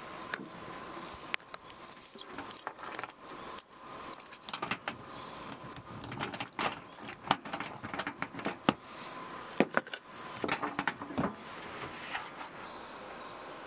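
Brass padlocks on an aluminium checker-plate roof box being handled and unlocked: a long run of irregular metallic clicks and jingles. Gear is then shifted inside the opened box.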